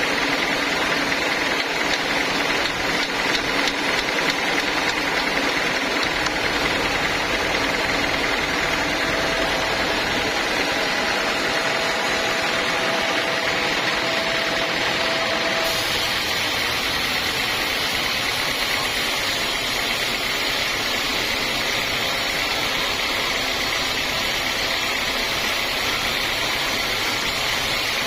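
Sawmill machinery running steadily: the engine-driven saw of a log-sawing rig, a continuous mechanical noise that changes character abruptly about halfway through.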